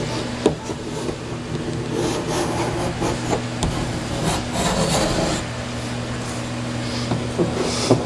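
Foil-faced sound-deadening sheet being rubbed and pressed by hand into the ribs of a van's sheet-metal panel: an irregular scratchy, crinkling rub with small clicks, over a steady low hum.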